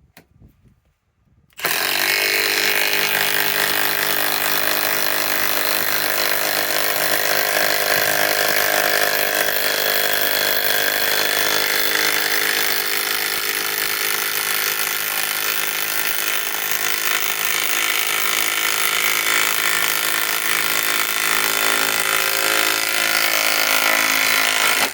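Milwaukee M12 Fuel Stubby 3/8-inch cordless impact wrench (2554-20) hammering continuously as it drives a 6-inch lag screw. It starts suddenly about a second and a half in, runs steadily for over 20 seconds and cuts off at the end.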